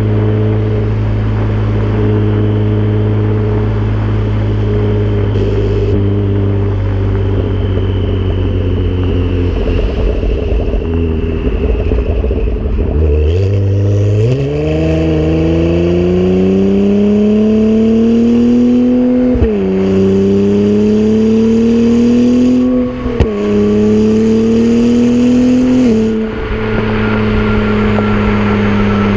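2017+ Acura NSX's twin-turbo V6 through a PRIDE valved exhaust with catted downpipes, heard close at the tailpipes. It holds a steady low note for about twelve seconds, then accelerates with the pitch climbing through three quick upshifts, each a sudden drop in pitch, before settling into a steady cruise.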